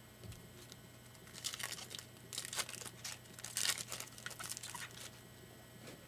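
Crinkling and tearing of a foil trading-card pack wrapper as cards are handled, in a run of short scrunching bursts from about a second and a half to five seconds in.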